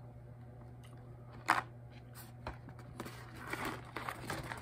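Handling noise from a cardboard box being turned over in the hands: one sharp tap about a second and a half in, then light rustling and small clicks near the end, over a steady low hum.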